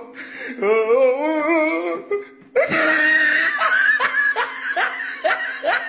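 Laughter: a wavering laugh, a brief break about two and a half seconds in, then a run of quick, evenly spaced laughs.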